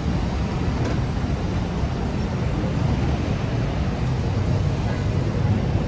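Steady low rumble of busy city road traffic.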